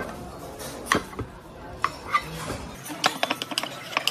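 A spoon clicking and scraping against a ceramic pot while it pulls apart braised chicken: a few separate clicks, then a quick run of them about three seconds in.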